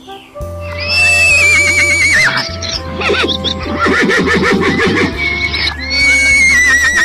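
A horse whinnying twice, each a high, quavering call that falls in pitch, over background music.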